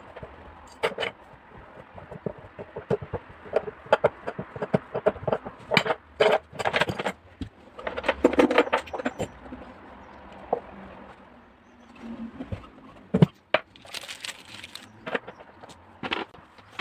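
Irregular clinks, knocks and scrapes of metal parts and hand tools being handled during washing-machine bearing work, with one sharper knock about thirteen seconds in.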